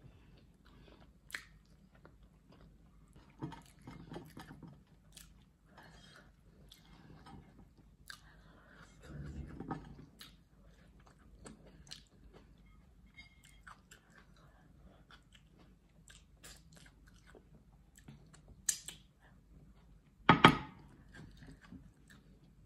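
Close-up mouth sounds of eating fried plantain and fried egg by hand: soft chewing, lip smacks and finger-licking, with scattered short clicks. A louder sharp smack comes about eighteen seconds in and a stronger one about twenty seconds in.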